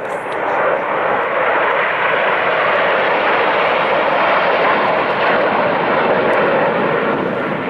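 Nine BAE Hawk T1 jets of the Red Arrows passing in formation, their Adour turbofan engines making a loud, steady rush of jet noise that swells in the first second and eases slightly near the end.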